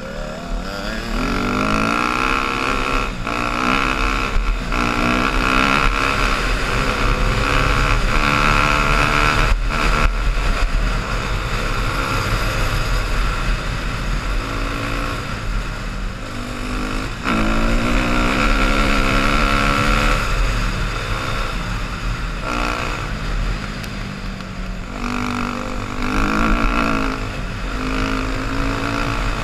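Yamaha dirt bike engine under hard acceleration at trail speed, heard close from the rider's helmet; its pitch climbs and drops again and again as the rider shifts up through the gears and rolls off.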